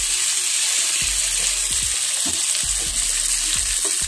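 Spice-coated catla fish pieces shallow-frying in oil, a steady sizzle, while a steel spoon turns them over with several light knocks and scrapes against the pan.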